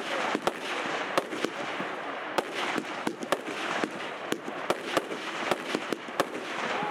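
A 24-shot consumer firework cake (Ragnarock E) firing. Shells burst in a rapid, irregular series of sharp bangs over a continuous dense crackling.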